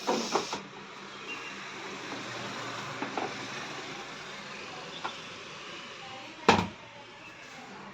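A single sharp knock about six and a half seconds in and a couple of faint clicks over a steady hiss, as loose parts are handled while a washing machine is being taken apart.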